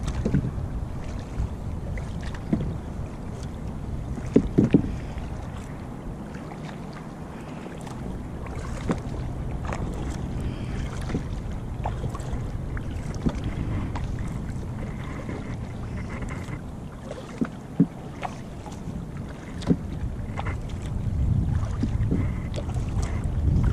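Wind rumbling on the microphone while out on a kayak on calm water, with occasional light knocks, two close together about four and a half seconds in.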